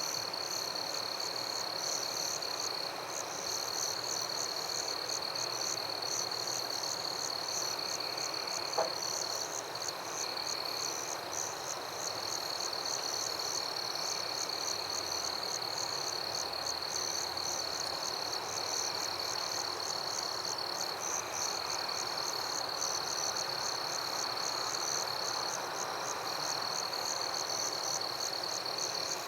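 Night chorus of crickets and other insects: one holds a steady high trill while others chirp in a fast pulsing rhythm above it, over a soft hiss. A single short click comes about nine seconds in.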